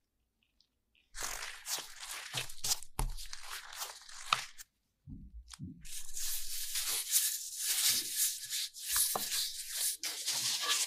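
Sticky mochi dough being worked by gloved hands and rolled flat with a wooden rolling pin on a plastic cutting board. It makes a dense crackling, tearing noise that comes in two long stretches after a near-silent first second, with a couple of soft low thuds between them.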